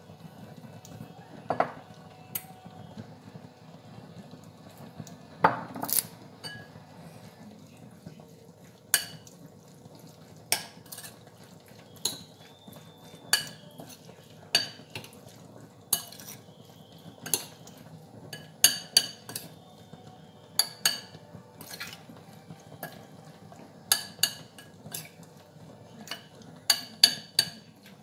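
A spoon stirring corn salad in a glass bowl, clinking sharply against the glass every second or so, and more often near the end.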